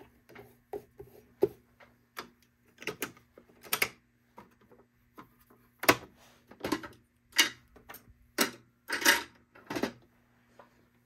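Irregular clicks, taps and short rubs of hands working on the plastic parts and threads of a Baby Lock Evolution serger, over a faint steady low hum.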